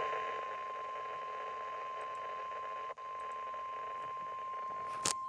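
Emergency alert warning tone: a single steady high tone (the 1050 Hz weather-radio warning alarm) over a hiss, signalling that a warning message follows. It drops out for an instant about three seconds in, and a few sharp clicks come near the end.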